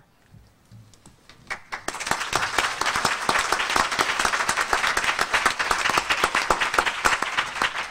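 Audience applauding, beginning about a second and a half in after a brief lull and going on as dense, steady clapping.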